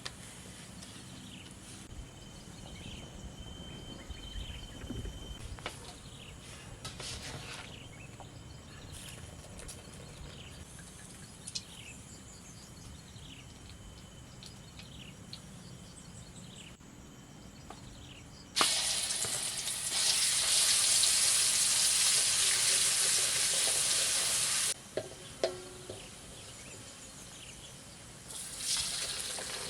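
Cooking oil sizzling loudly as food fries, starting suddenly about 18 seconds in, lasting about six seconds and stopping abruptly, then sizzling again near the end. Before that there are only quiet surroundings with faint high chirps.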